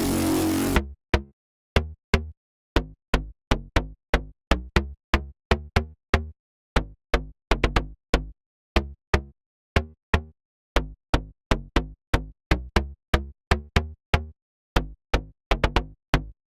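Synth bass from a Serum preset playing short staccato notes in a rhythmic pattern, each with a sharp attack and a quick decay into silence. A sustained, dense bass sound cuts off suddenly about a second in.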